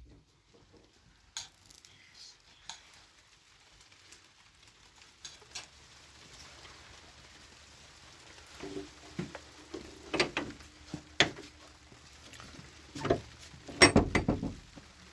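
Scattered clicks and knocks of household objects being handled, sparse at first, then busier and louder in the second half, with a cluster of sharp knocks near the end.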